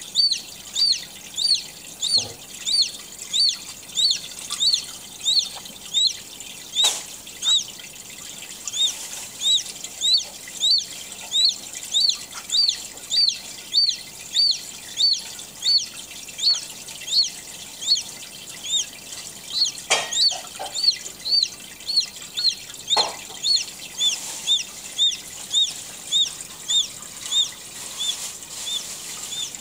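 Newly hatched chicken chick peeping, high, short peeps repeated about twice a second without letup. A few soft knocks sound under the peeps.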